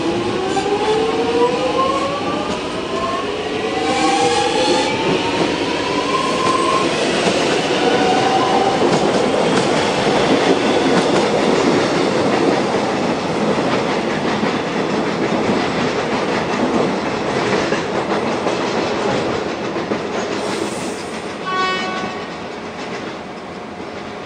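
X'Trapolis electric train pulling away, its traction motors whining upward in pitch over the first several seconds. The rumble and wheel noise of a train running through the station follow. A short pitched note sounds about 21 seconds in.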